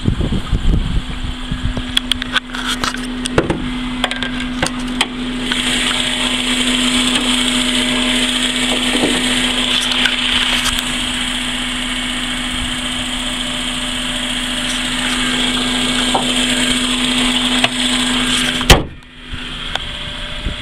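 2005 Honda Accord EX engine idling steadily with a constant hum, heard under the open hood with a strong hiss of fan and engine noise. Near the end the hood is slammed shut with one loud bang, and the engine noise falls away.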